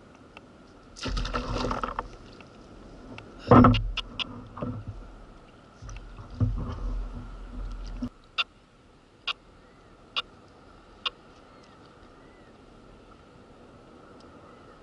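Splashing and water handling noises around a kayak as a small cabrilla is let go over the side, the loudest splash a little under four seconds in. This is followed by four sharp ticks about a second apart.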